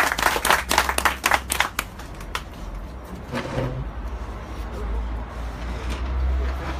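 A small crowd clapping, dying away about two seconds in, then people murmuring and shifting about over a steady low rumble.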